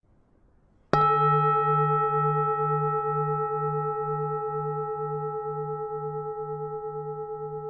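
Buddhist temple bell struck once about a second in, then ringing on with a slowly pulsing low hum and several higher tones, fading gradually.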